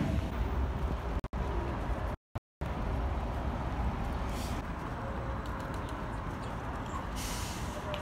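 Steady low rumble of a moving vehicle, with short hisses about four and a half and seven seconds in. The sound cuts out briefly about a second in and again a little after two seconds.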